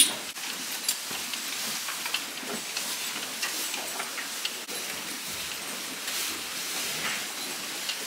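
Dairy cows in tie stalls eating hay: a steady rustling hiss with scattered sharp clicks, the loudest right at the start.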